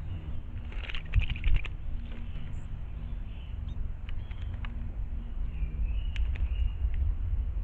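Outdoor ambience at a forest water hole: a steady low rumble with faint, scattered bird chirps, a quick cluster of clicks about a second in, and a couple of short sharp calls around six seconds.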